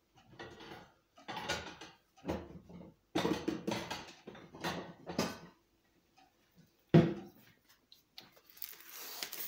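Paper biscuit-roll wrapper crinkling and rustling in several irregular bursts as it is handled, with a sharp knock about seven seconds in and a further hissy crackle near the end.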